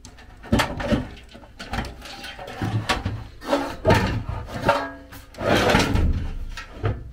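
Furnace blower assembly's sheet-metal housing being slid back into the furnace cabinet: metal scraping and knocking as it is pushed into place, with a longer scrape about two-thirds of the way through.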